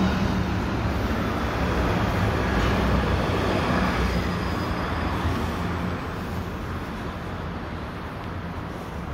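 City street traffic noise: a steady rumble of vehicles, growing somewhat quieter from about six seconds in.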